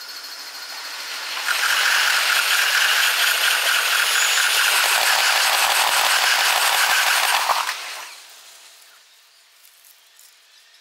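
A Yokosuka Line train passing close by, sped up to six times normal speed, so the wheel clatter over the rail joints blurs into a dense, rapid rattle. It builds, stays loud for about six seconds, then fades away.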